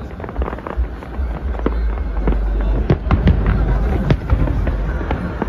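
Aerial fireworks shells bursting in quick, irregular succession: many sharp bangs, about three a second, over a continuous deep rumble.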